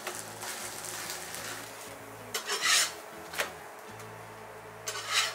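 Metal slotted spatula scraping and rubbing against a black iron tawa under a frying spinach chickpea-flour pancake, in a few short rasping strokes, the loudest near the middle and near the end, over a faint sizzle.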